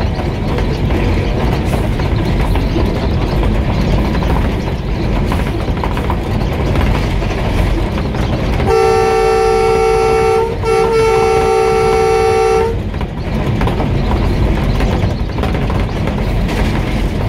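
ZCU-20 diesel-electric locomotive running along the track with a loud, steady running noise. About halfway through, its horn sounds a steady chord for about four seconds, broken once by a brief gap.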